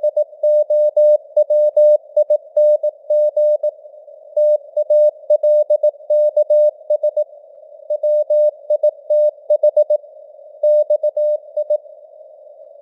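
Morse code (CW) sent at 18 words per minute: a single-pitch beep keyed into dots and dashes over simulated radio noise hiss, the signal strength fading up and down (QSB). The keying pauses for about the last second, leaving only the hiss.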